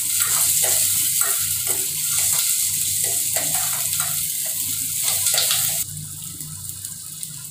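Sliced onions sizzling in hot oil in an enamel pot, stirred with a steel ladle that scrapes and knocks against the pot. The sizzle drops off abruptly about six seconds in.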